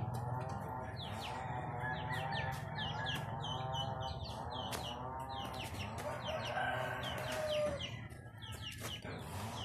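Chickens clucking, with a rooster crowing.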